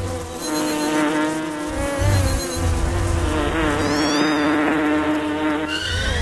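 Several flying insects buzzing, a droning buzz that wavers in pitch, with a few short high chirps about four seconds in.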